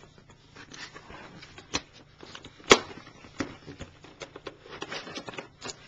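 A product box being opened and its packaging handled by hand: irregular rustling and small clicks, with one sharp, louder snap about two and a half seconds in.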